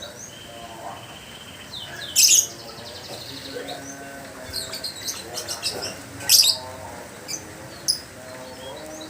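Lovebird ngekek: shrill calls and a rapid chattering trill in bursts, the loudest about two seconds in and again around six seconds in, over fainter continuous chirping.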